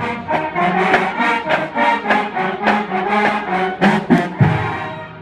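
Marching band playing: brass, sousaphones included, over a steady drum beat, the music tailing off near the end.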